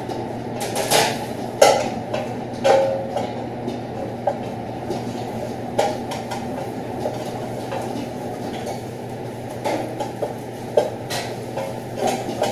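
Metal spoon scraping and knocking against a stainless-steel saucepan at irregular intervals while tomato paste is stirred as it fries. Beneath it runs the steady low rumble of a commercial kitchen extractor hood.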